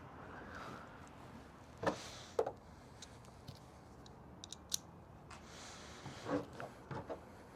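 Light clicks and taps of small hand tools and parts being handled, as a Torx bit is picked out for the fan's self-tapping screws. There are a few knocks about two seconds in, a cluster of sharp high ticks in the middle, and more knocks near the end.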